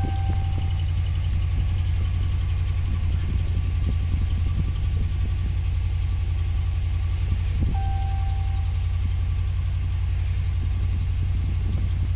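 Dodge Ram 5.7-litre Hemi V8 idling steadily. Two short beeps sound, one at the start and one about eight seconds in.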